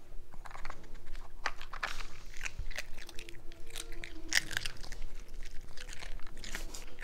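Small dog crunching and chewing dry kibble taken from a plastic treat puzzle, with irregular sharp clicks and clacks of the puzzle's plastic flip-lids as it noses them open.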